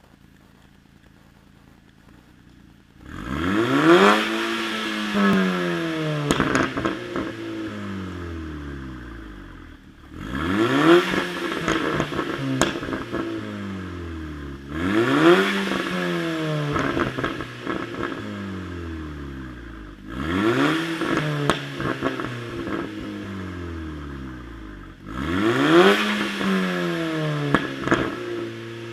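Volkswagen Golf 5 GTI Edition 30's turbocharged 2.0 TFSI four-cylinder, running a decat downpipe with no resonator, idling quietly and then free-revved five times: each rev climbs sharply and falls away over several seconds, with crackles from the exhaust as the revs drop.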